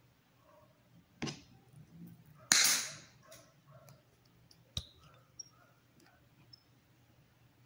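Diagonal cutting pliers snipping through a wooden craft stick: one loud, sharp crack about two and a half seconds in, with lighter clicks around a second in and near five seconds.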